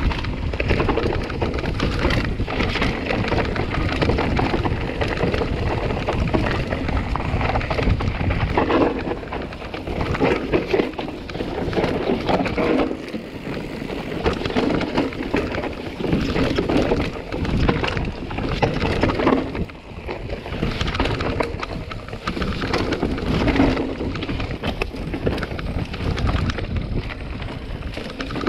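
Mountain bike riding a rough trail, heard from a chest-mounted action camera: wind buffeting the microphone, tyres rumbling over dirt and stones, and the bike rattling with many small knocks.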